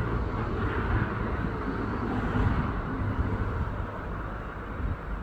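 Steady low rumbling background noise, easing slightly near the end.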